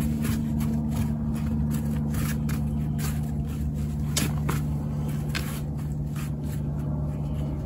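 Gloved hands scratching and rustling through loose potting soil around a young cherry tree's trunk and surface roots in a plastic garden pot, in many small irregular crackles. A steady low mechanical hum runs underneath.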